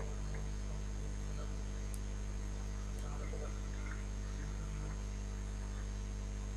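Steady electrical mains hum with its overtones, with two faint clicks about a second apart.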